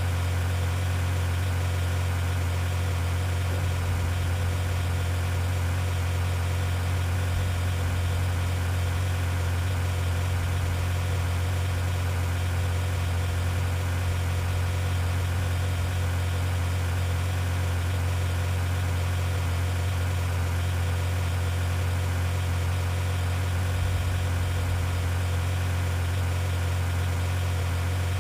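A vehicle engine running at a steady idle, a constant low hum that does not change.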